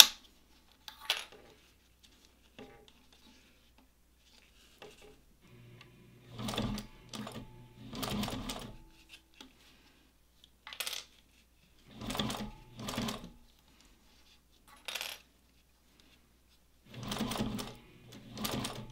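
Juki 1541 industrial walking-foot sewing machine stitching in short runs of a second or two, starting and stopping several times while stitching a leather tab onto a zipper end. Sharp plastic clicks fall between the runs as the sewing clips are handled.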